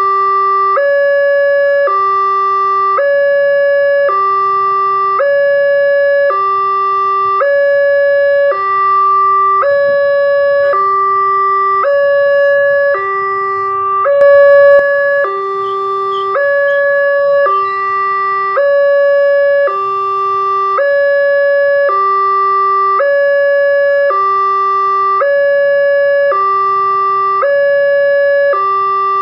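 Railway level-crossing warning alarm sounding a steady two-tone hi-lo signal, each tone held about a second and repeating without a break. It is the signal that the crossing is closed for an approaching train, sounding from one horn loudspeaker while its twin is dead.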